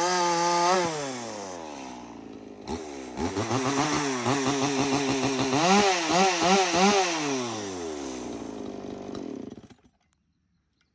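Echo CS-4510 two-stroke chainsaw running at high revs, then dropping to idle about a second in. It is revved up in a series of throttle blips, settles back to idle and is shut off near the end.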